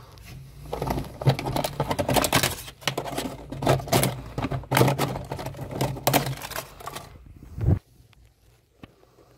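Crackling and scraping as a gloved hand picks and breaks away termite-eaten wood and dried mud crust at the base of a piece of furniture, a dense run of irregular clicks that stops abruptly near the end.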